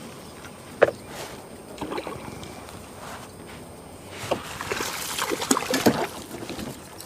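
Water sloshing and knocks in a small fishing boat as a hooked rainbow trout is brought in: one sharp knock about a second in, then a busier run of irregular clicks and splashy noise over the last few seconds.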